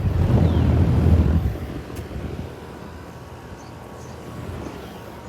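Outdoor Goodman air-conditioner condensing units running, a steady low hum of compressors and fans. A louder low rumble fills the first second and a half, then drops back to the steady hum.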